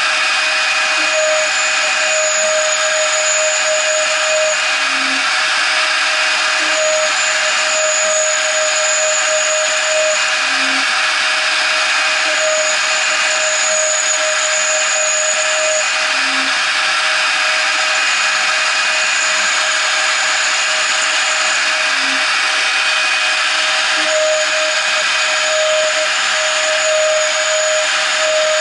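CNC router's 0.75 kW spindle running at speed while a 2 mm end mill cuts aluminium angle in shallow passes: a steady high whine and cutting noise, with a sharper cutting tone that comes and goes about every six seconds as the tool moves along its path.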